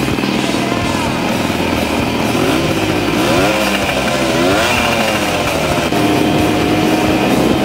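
Suzuki TS100 two-stroke single-cylinder motorcycle engine running as the bike rides off. Its pitch rises and falls a few times about halfway through, then holds steady near the end.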